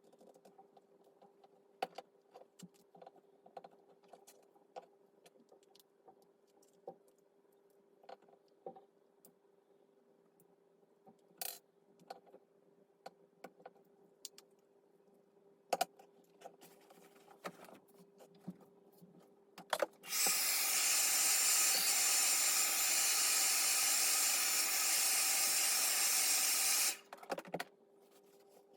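Light clicks and scrapes of a knife working under the glued back glass of a Samsung Galaxy S8, over a faint steady hum. About two-thirds of the way in, a loud steady hiss starts suddenly, lasts about seven seconds and cuts off.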